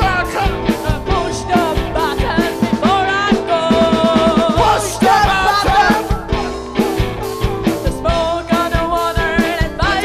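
Live rock band playing: a steady drum beat under saxophone, keyboard and electric guitar, with held melody lines on top.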